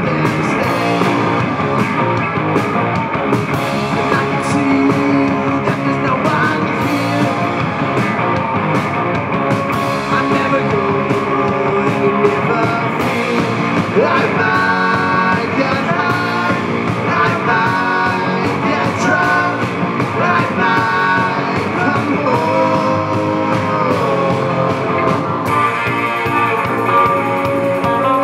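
Live rock band playing loudly: electric guitars, bass and drums, with a voice singing over them.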